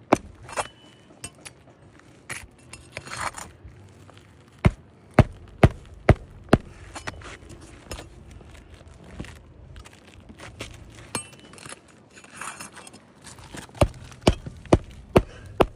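Hammer driving roofing nails into an asphalt shingle: two runs of about five sharp blows at roughly two a second, one in the middle and one near the end, with lighter taps and the rustle and scrape of the shingle being handled between them.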